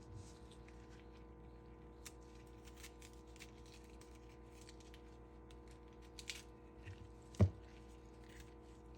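Quiet kitchen prep sounds of halving jalapeños and scooping out their seeds and ribs: light scrapes and small clicks, with one sharper knock about seven and a half seconds in, over a steady low hum.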